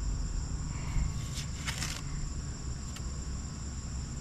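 Steady, high-pitched drone of an insect chorus, over a low rumble, with a few short scrapes about a second and a half in.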